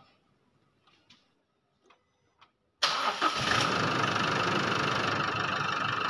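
Near silence with a few faint clicks, then about three seconds in a steady engine running sound comes in suddenly: an Isuzu diesel engine at idle.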